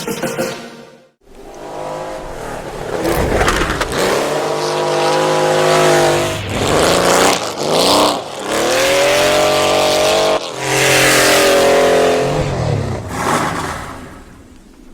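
Porsche race car engine accelerating hard, its pitch climbing and then dropping back several times as it shifts up through the gears, before fading away near the end.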